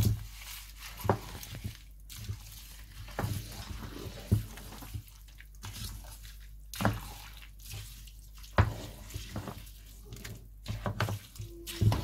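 Metal spoon mixing thick curd rice in a large metal pot: wet squelching with irregular knocks and scrapes of the spoon against the pot.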